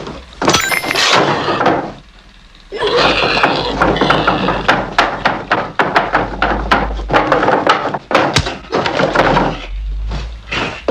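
A rapid string of loud thuds, knocks and slams, with a short quieter gap about two seconds in.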